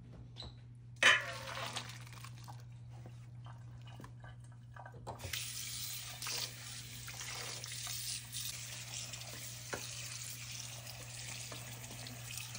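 Boiled egg noodles and their water poured from the pot into a metal colander in the sink, a loud splash about a second in, then the kitchen tap running from about five seconds in, rinsing the pot and the noodles. A low steady hum lies underneath.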